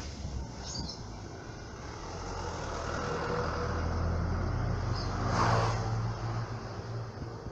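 A motor vehicle passes by: its engine hum builds over a few seconds, is loudest about five and a half seconds in, then fades. A few short bird chirps sound over it.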